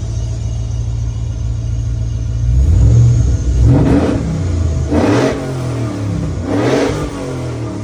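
6.0-litre LS V8 in a 1971 Jeep J-2000 truck idling steadily, then revved in several quick blips starting about two and a half seconds in.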